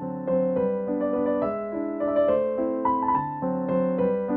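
Background music: piano, electric piano in timbre, playing a flowing melody over held chords.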